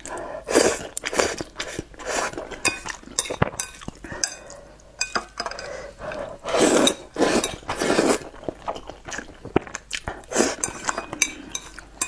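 Close-miked noodle eating: several slurps of saucy noodles, each lasting about half a second to a second, with chewing and sharp clicks of chopsticks against a ceramic bowl in between.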